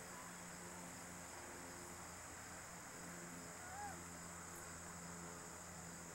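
Faint steady background: a high, even hiss-like band with a low hum beneath it, and one short faint chirp that rises and falls about four seconds in.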